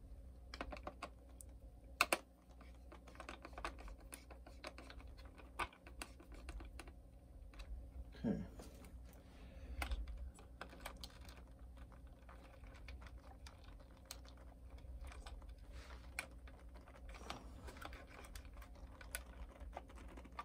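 Faint, irregular small clicks and taps of fingers handling the plastic chassis, wiring and servo of an RC truck, with one sharper click about two seconds in.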